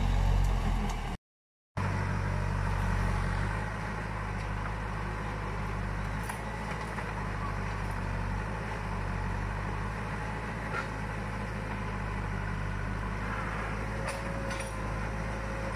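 Backhoe's diesel engine running steadily, with a brief dropout to silence about a second in.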